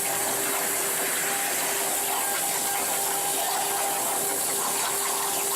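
Plasma cutting torch hissing steadily, with a faint constant tone underneath.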